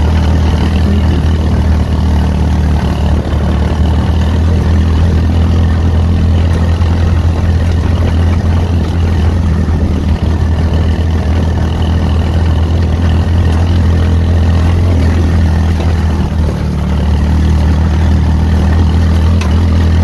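Off-road kart's engine running at a steady pace as the kart drives along, a continuous low drone.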